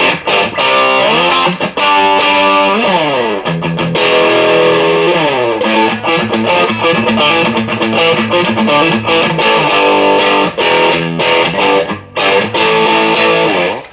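Knaggs Choptank electric guitar played through an overdriven amp: riffs and chords with slides down the neck a few seconds in, stopping suddenly at the end.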